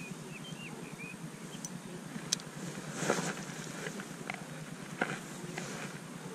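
Steady outdoor background noise by a pond, with a few short bird chirps in the first second and several light clicks from handling a spinning rod and reel.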